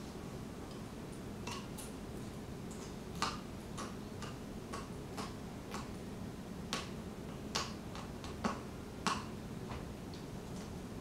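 Dog chewing a Goughnut rubber chew ring: irregular clicks of teeth on the hard rubber, about a dozen, the loudest in the second half.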